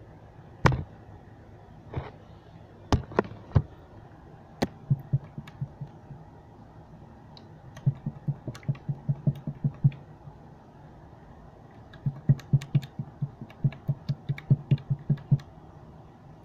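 Fingers poking and pressing a blob of white slime on a wooden table: quick runs of soft squishy taps and little pops, about five a second, in two bursts. A few louder knocks come in the first five seconds.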